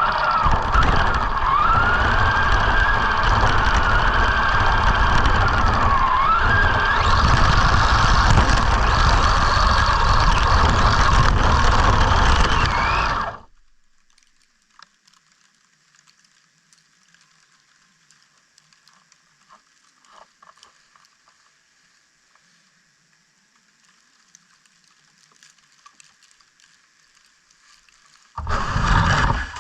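Arrma Senton RC truck's electric motor whining, its pitch rising and falling with the throttle, over loud rushing noise as it drives through snow. It cuts off suddenly about 13 seconds in, leaving faint ticks, and starts up again loudly near the end.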